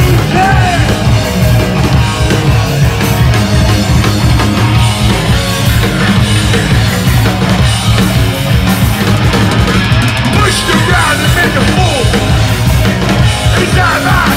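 Hardcore punk band playing live and loud: distorted electric guitar, bass guitar and drum kit, with a singer yelling into a microphone near the start and again near the end.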